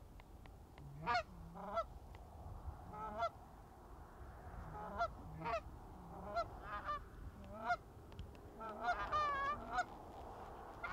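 Canada goose honks and clucks, single and in pairs every second or so, building to a quick run of calls about nine seconds in and a loud honk at the end.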